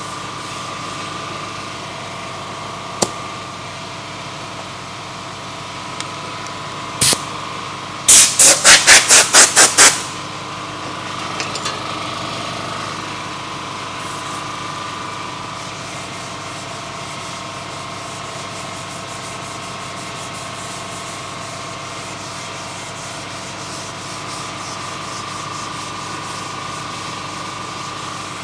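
Sanding of primer on a car body panel, a steady rubbing hiss throughout. A sharp click comes about three seconds in and a loud burst a few seconds later. Then a fast run of about eight very loud, sharp bursts follows over about two seconds.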